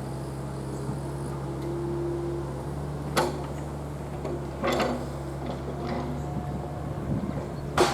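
Small Komatsu excavator's diesel engine running steadily, with three sharp knocks about three, five and eight seconds in.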